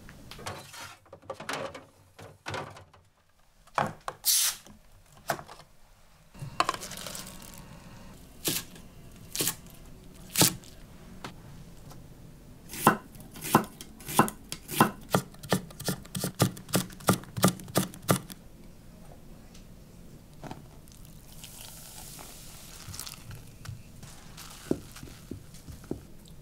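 Kitchen knife chopping garlic chives and onion on a thick wooden cutting board: a run of sharp chops, about two to three a second, in the middle. Before it come scattered knocks and clicks from the refrigerator door and the items taken from it; after it, a soft hiss and a spoon stirring batter in a glass bowl.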